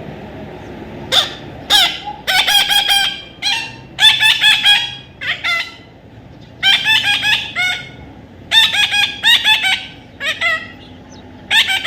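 Parrot, by the title a young one, giving harsh squawking calls in rapid bursts of several short notes, repeated with brief pauses.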